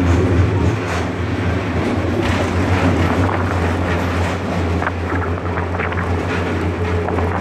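Railway coach in motion heard from its open-sided passenger compartment: a steady low rumble of the running train with wind buffeting the microphone, and a few short clicks about two-thirds of the way through.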